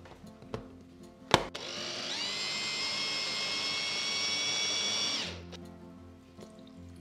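Electric mini chopper motor blending cooked broccoli with cream and tomato paste into a purée: a sharp click, then the motor spins up with a rising whine, runs steadily for about three and a half seconds, and stops about five seconds in.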